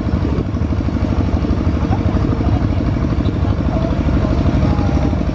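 Tractor engine running steadily with a fast, even chugging beat as it carries passengers along a dirt road.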